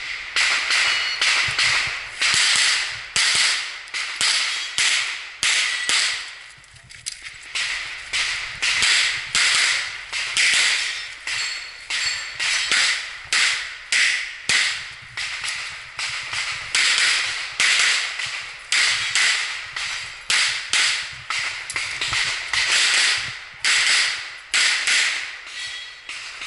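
Pistol fired in rapid pairs and strings at targets, dozens of sharp shots, with a short lull of about two seconds a quarter of the way in while the shooter moves or reloads.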